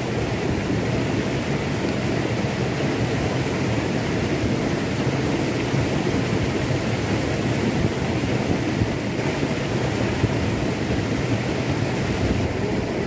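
Shallow rocky stream rushing steadily over stones in small rapids.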